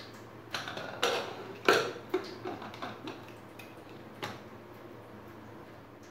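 Aluminium pressure cooker lid being fitted and locked shut: a run of metal clicks and clinks in the first two seconds, the loudest a little under two seconds in, and one more knock a little after four seconds.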